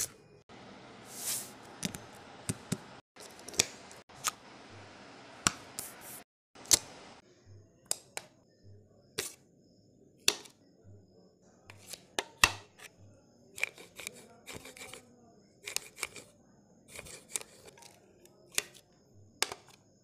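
Sharp clicks and snaps of hard computer parts being handled, at irregular intervals of one or two a second. A steady hiss runs under them and drops away about seven seconds in.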